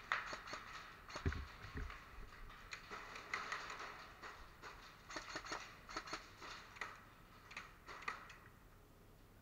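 Irregular sharp clicks and pops in short clusters, with two dull thumps between one and two seconds in; the clicking dies down near the end.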